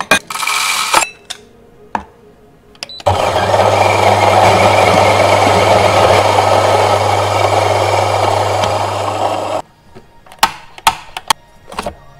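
Electric coffee grinder grinding a dose of espresso beans: the motor starts about three seconds in, runs steadily with a low hum for about six and a half seconds, then stops abruptly. Before it, a short rattle of beans going into the hopper; after it, a few sharp clicks as the grounds cup is handled.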